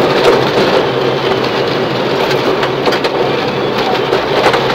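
Subaru Impreza rally car at speed on a gravel forest stage, heard from inside the cabin: the flat-four engine running hard under load beneath a constant rush of tyres on gravel, with stones clicking against the underbody.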